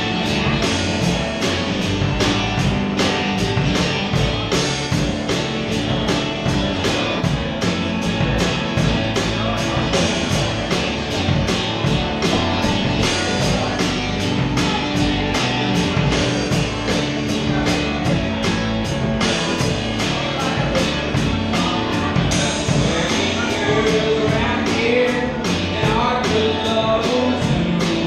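Live blues-rock trio playing: acoustic guitar, bass and a drum kit keeping a steady beat.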